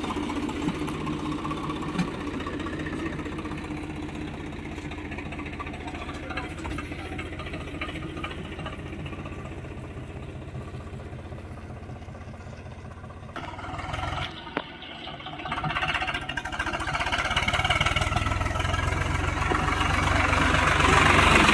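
Swaraj 744 FE tractor's three-cylinder diesel engine running steadily while it tows a loaded trolley, with a brief drop about fourteen seconds in; it grows louder towards the end as the tractor draws near.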